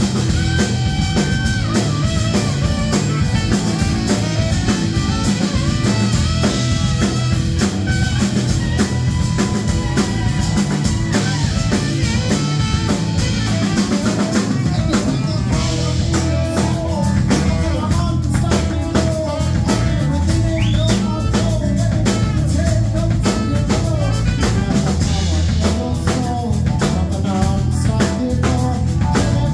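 A live band playing a song: a steady drum-kit beat under electric bass, acoustic guitar, keyboard and a saxophone melody.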